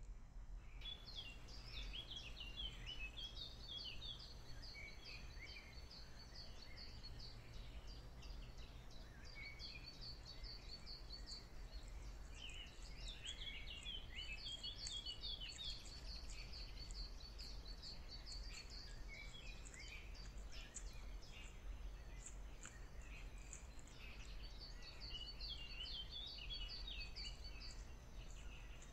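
Several wild birds singing and calling at once, with fast high trills repeated in runs and busier chirping between them, over a steady low hum.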